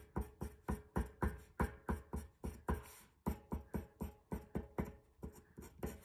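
Pencil making rapid short feathering strokes on paper over a hard table, a quick scratchy tapping at about four or five strokes a second.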